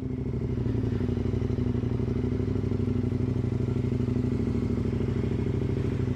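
KTM 1090 Adventure R's V-twin engine running steadily at low revs, with no rise or fall in pitch.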